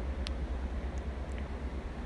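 Steady low hum with faint hiss, the recording's background noise, with one faint tick about a quarter second in.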